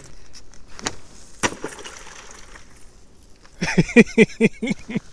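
Thin river ice cracking and breaking under a thrown weight: two sharp knocks about half a second apart, then faint crackling. Near the end come a few short, loud sounds of a voice.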